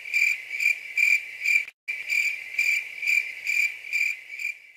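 A cricket chirping in a steady high rhythm, about two chirps a second, with a brief break a little under two seconds in. It fades out at the end.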